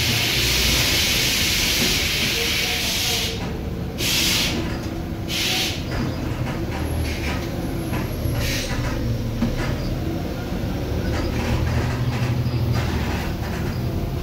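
Volvo B7RLE city bus's diesel engine running, with a long hiss of compressed air from its pneumatic system that cuts off about three seconds in, then a few short air hisses.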